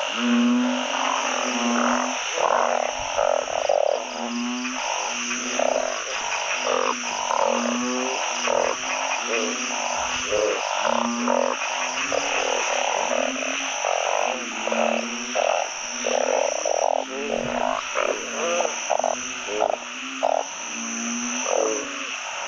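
A chorus of many narrow-mouthed frogs (อึ่ง) calling together, their short low croaks repeating and overlapping without pause over a steady high-pitched drone.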